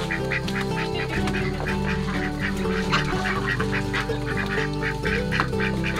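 A flock of farm waterfowl calling with many quick, overlapping quacks and honks, over background music with sustained low notes.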